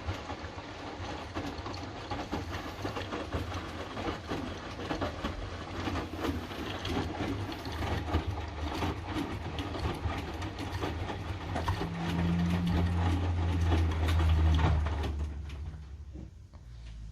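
Hotpoint washing machine in the main wash of its Fastwash 60 programme: the motor hums as the drum turns, with clothes and water tumbling and clattering inside. The motor hum grows louder about twelve seconds in, then dies away near the end as the drum slows to a pause.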